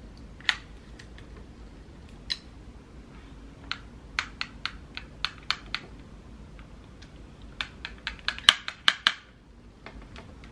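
Sharp plastic clicks and clacks of a hair flat iron being handled and clamped on hair: a few single clicks at first, a run of about seven near the middle, and a quick flurry of clicks near the end.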